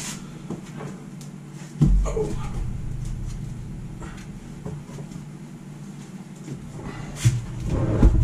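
Knocks and scrapes of a plastic drum of mixed self-leveling underlayment being handled and tipped to pour, with a heavy thump about two seconds in. A steady low hum runs underneath.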